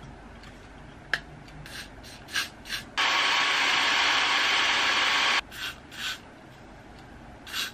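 Handheld hair dryer switched on for about two and a half seconds, a steady rushing blow that starts and stops abruptly, drying the lace of a lace-front wig at the hairline. Short hissing puffs of aerosol hair spray come before and after it.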